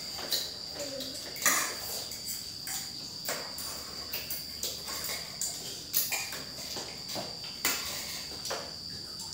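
Spoons and forks clinking and scraping on ceramic plates now and then during a noodle meal, over a steady high chirring of crickets.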